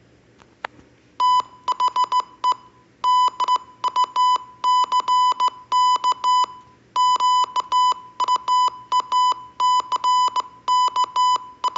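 Morse code beeps: a single steady tone keyed in dots and dashes, spelling out the sentence "The duck quacks" at practice speed. It starts about a second in, with short gaps between letters and longer ones between words.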